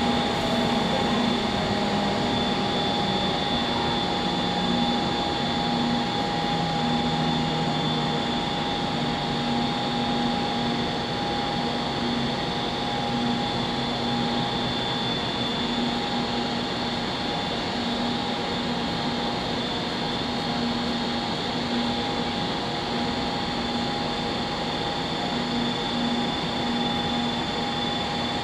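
SRT high-speed electric train at the station platform, its electrical and cooling equipment humming steadily with several fixed whining tones and a pulsing low tone. Early on, a few deeper tones step down in pitch and fade out.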